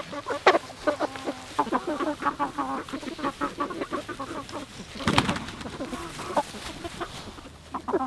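A flock of McMurray Big Red Broiler meat chickens clucking steadily while foraging, many short calls overlapping, with a brief rush of noise about five seconds in.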